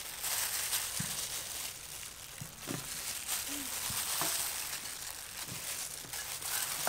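Knife cutting through jackfruit bulbs held in a plastic-gloved hand: soft crunching cuts and crinkling of the glove, over a steady hiss.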